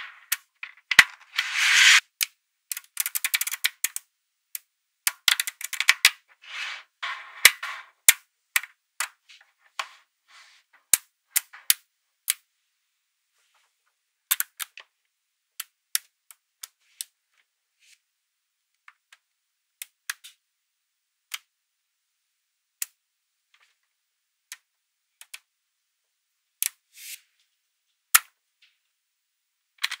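Small metal magnetic balls clicking sharply as they snap onto one another, with short clattering runs as strands of balls are handled and pressed into place. The clicks come thick and fast in the first dozen seconds, then thin out to single clicks a second or more apart.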